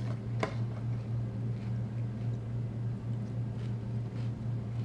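A metal spoon clinks once against a cereal bowl about half a second in, with a few faint ticks later, over a steady low hum.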